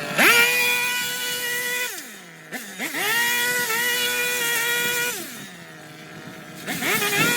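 Handheld powered garden trimmer revved in throttle bursts: the motor whine climbs quickly, holds a steady high pitch for about two seconds, then winds down, twice, and starts climbing again near the end.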